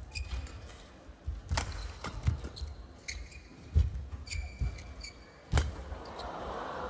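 Badminton rally: sharp racket strikes on the shuttlecock every one to two seconds, with short high shoe squeaks on the court mat and low footwork thuds. Crowd noise rises near the end.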